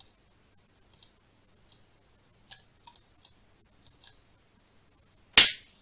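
Computer mouse clicking about ten times at an uneven pace while nodes are placed and connected in Blender, followed about five seconds in by one short, loud burst of noise.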